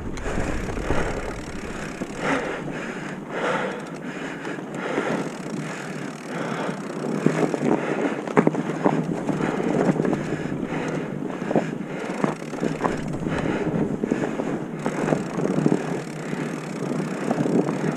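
Bicycle ridden over rough, rocky trail: tyre noise with frequent rattles and knocks from the bike, and wind on the microphone.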